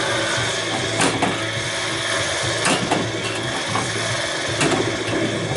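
Bally Flash Gordon pinball machine in play: a steady electronic background hum from its speaker, with sharp mechanical clacks of flippers and solenoids striking the ball at irregular intervals.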